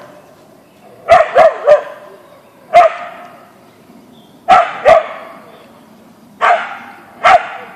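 Siberian Husky mix barking at a deer: about eight sharp barks in clusters of one to three, spaced a second or two apart, each trailing off in a short echo.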